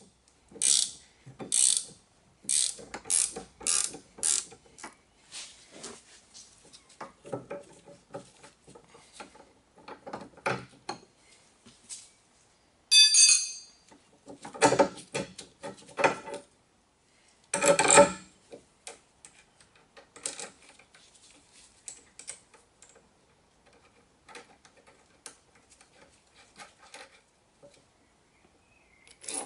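Ratcheting spanner clicking in runs as it turns the nut on a car's anti-roll bar drop link, with metal tools and parts clinking in between. About 13 seconds in there is a loud metallic clink with a short ring.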